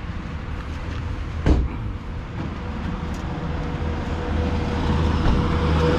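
A vehicle engine running steadily and growing louder, with a single knock about a second and a half in.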